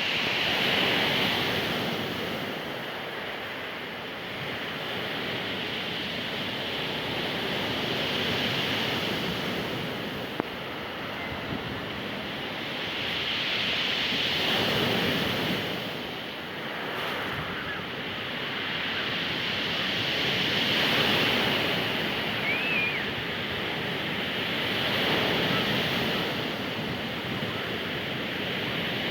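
Sea waves breaking and washing on the shore, the surf swelling and fading about every six seconds. A single sharp click sounds about ten seconds in.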